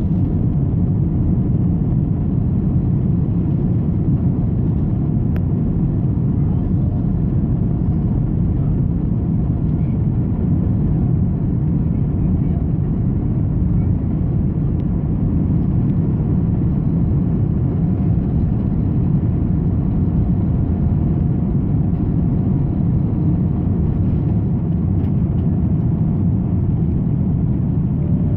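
Jet airliner cabin noise during the takeoff roll: engines at takeoff power with a steady low rumble from the runway, heard from a window seat beside the wing.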